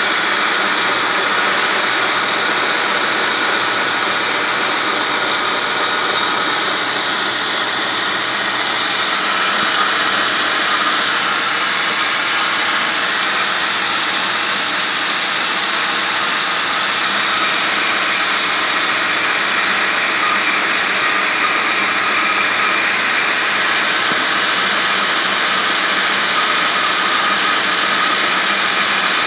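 Ford 4.6 L single-cam V8 in a 2003 Mercury Grand Marquis running, heard up close at the front accessory drive belt and pulleys: a loud, steady rush with thin, high whining tones in it.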